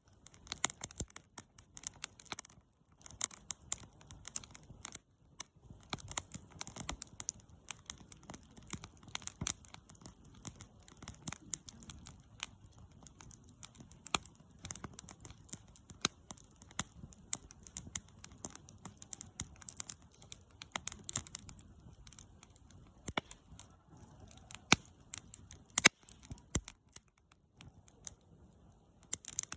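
Wood campfire crackling: irregular sharp pops and snaps, several a second, over a soft low hiss of burning, with one louder snap near the end.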